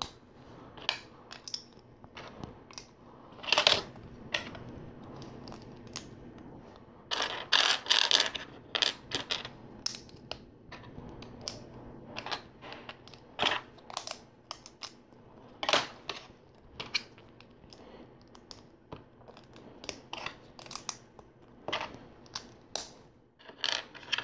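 Plastic LEGO pieces clicking and rattling as they are picked from loose parts and pressed onto the model: scattered sharp clicks, with a denser run of rattling about seven to nine seconds in.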